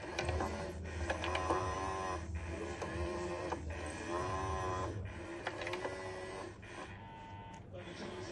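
Small electric motor of a battery-powered pop-up cat toy whirring under its plastic dome as it spins a feather wand round. The whir rises and falls about every second and a quarter, with light clicks and taps on the plastic.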